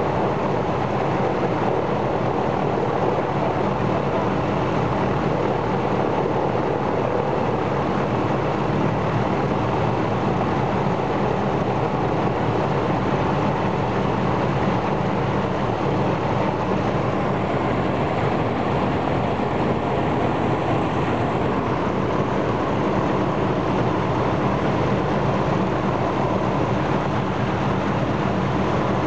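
The Ilyushin Il-14's Shvetsov ASh-82T fourteen-cylinder radial engine running steadily during a ground run-up, its cowlings removed.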